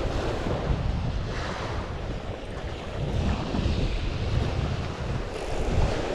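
Wind buffeting the microphone in uneven gusts over the wash of surf on the beach.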